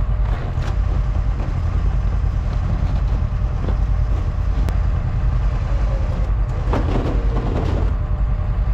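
Kawasaki KRX1000 UTV on Camso snow tracks running: a steady low rumble with a few scattered knocks.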